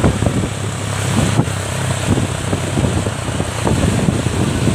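Tour bus engine running steadily, with wind crackling on the microphone.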